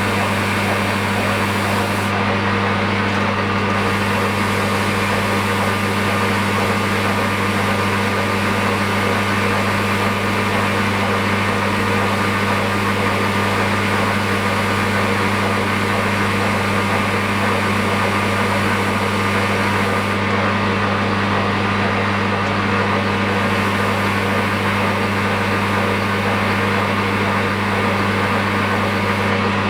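A lathe set up for grinding, running steadily: a constant motor hum with a hiss over it. The top of the hiss thins briefly about two seconds in and again about twenty seconds in.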